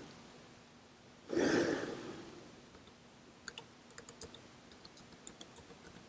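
Light typing on a 2010 MacBook Pro's built-in keyboard: a quick, irregular run of soft key clicks in the second half as a Wi-Fi password is entered. Before it, about a second and a half in, a short soft rustling noise.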